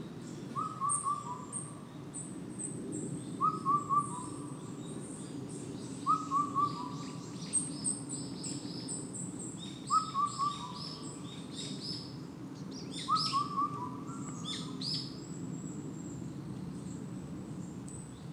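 Indian cuckoo singing its four-note, falling phrase, repeated five times about every three to four seconds. Small songbirds chirp alongside in high, quick notes.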